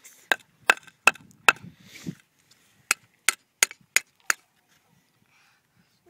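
A hammer striking bricks: four sharp blows in quick succession, a short pause, then five more.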